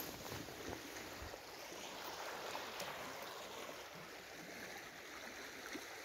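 River water flowing, a steady rushing.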